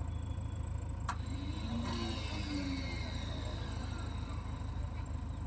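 Heavy diesel engine running steadily at a low rumble, from the backhoe loader or tractor working the mud loading, with a single sharp click about a second in.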